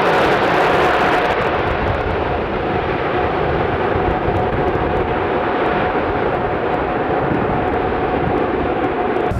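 Jet aircraft engines during a display flight, a steady loud rush with a held whine in it. The hiss dulls after about two seconds as the aircraft draws away.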